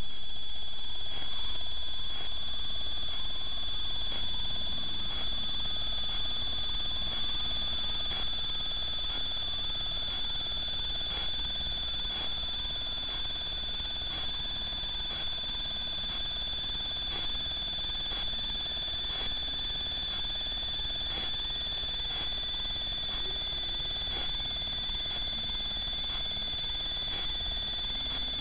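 Steady high-pitched electronic whine from an IR trail camera's own electronics, with faint ticks about once a second over a low hiss. It eases a little quieter over the first ten seconds.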